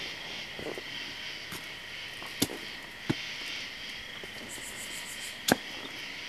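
Night-time insect chorus of crickets, a steady high trilling, broken by three sharp clicks or snaps about two and a half, three and five and a half seconds in, the last the loudest.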